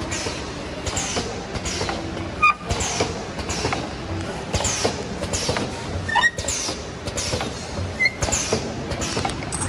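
Automatic paper canister flanging and sealing machine running: a high sound falling in pitch repeats about every 0.8 seconds, with clicks and knocks and a few short squeaks as the rotary turntable indexes the paper cans.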